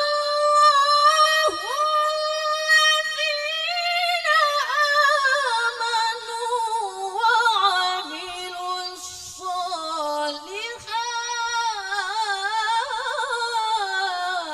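A woman reciting the Qur'an in melodic tilawah style into a microphone. It is one long sung phrase: early on a steady held high note, later lower notes with wavering ornamental turns.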